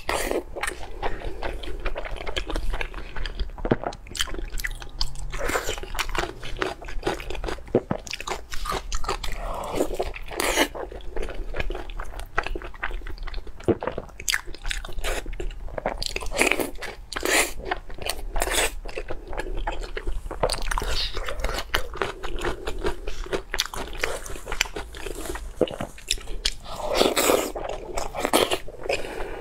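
A person biting and chewing crunchy food, with many sharp crunches in quick, irregular succession.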